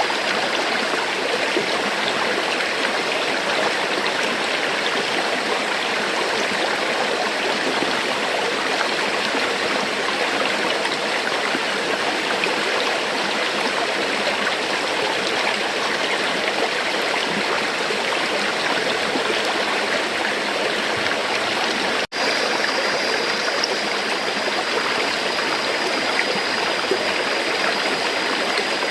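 Flowing river water: a steady, even rushing that cuts out for an instant about three quarters of the way through.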